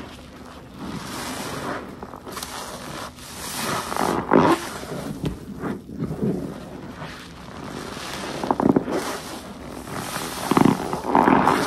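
A detergent-soaked sponge squeezed by hand over and over, squelching and crackling with soapy foam. The loudest squeezes come about four seconds in, around eight seconds and near the end.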